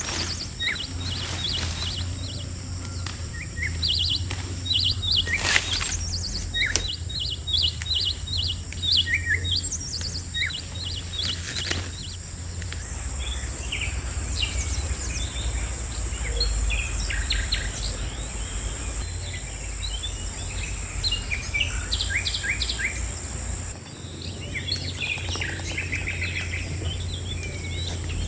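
Many chicks peeping continuously in quick, short, high chirps, over a steady low hum, with a couple of sharp knocks.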